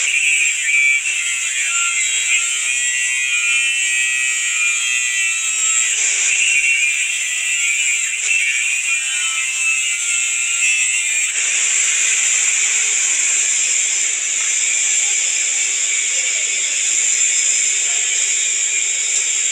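Steady hiss and crackle of an electric welding arc burning continuously, its sound shifting about eleven seconds in.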